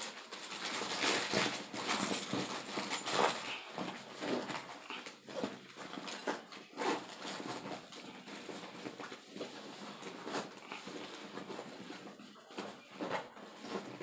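Fabric rustling and handling of a black soft crossbow case, with its zipper being fiddled with and worked open; an irregular, continuous scuffing, loudest in the first few seconds.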